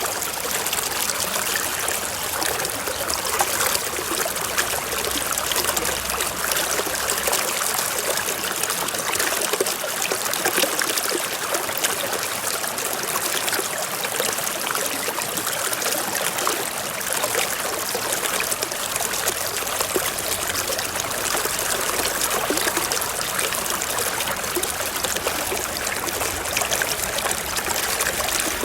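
Small mountain stream running steadily over rocks, a continuous trickling and splashing rush of water.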